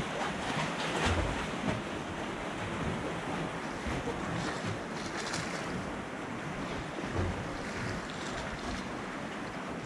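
Sea waves washing in, with wind gusting on the microphone: a steady wash of noise that swells now and then.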